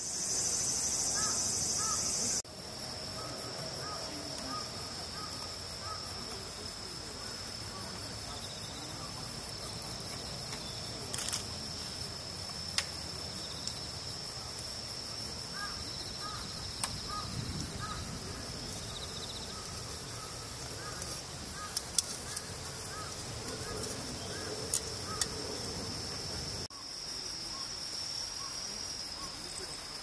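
Insects singing outdoors: a steady high-pitched trill, with a faint run of short repeated chirps lower down and a few sharp clicks. The first couple of seconds hold a louder high hiss that cuts off abruptly.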